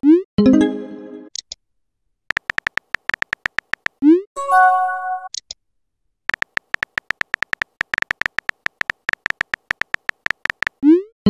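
Simulated phone-keyboard typing clicks, rapid and rhythmic, from a chat-animation app. Three times, near the start, about four seconds in and near the end, a short rising whoosh is followed by a pitched chime as a message is sent or received.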